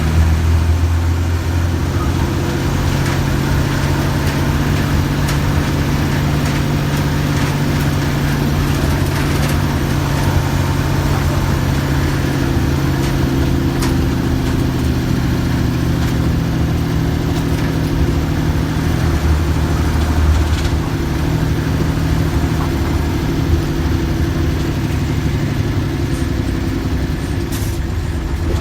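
Mercedes-Benz OF-1315 bus's diesel engine running steadily, with a low, even tone that shifts slightly in pitch now and then.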